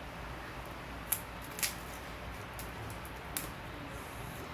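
A prying tool clicking against an HTC One M8 smartphone's battery as it is worked under the battery to lift it. There are three short clicks over a steady hiss.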